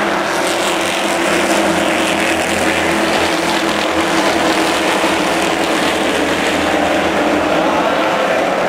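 A pack of late model stock cars' V8 engines running at full racing speed, a loud, steady, unbroken engine sound from the whole field at once.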